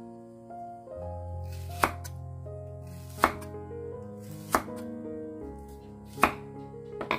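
Cleaver chopping peeled green banana on a round wooden chopping board: five sharp knocks, a little over a second apart, starting about two seconds in, over background music.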